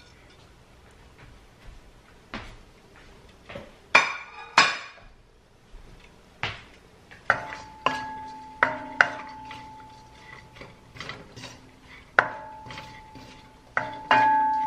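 Wooden spoon knocking and scraping against a stainless steel wok while cauliflower rice is stirred. A few separate knocks at first, then from about halfway through quick, frequent knocks, the pan ringing after the harder ones.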